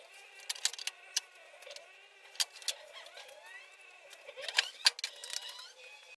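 Sped-up time-lapse workshop sound: rapid scattered clicks and knocks with thin, squeaky pitch glides, louder knocks about two and a half seconds in and again near five seconds.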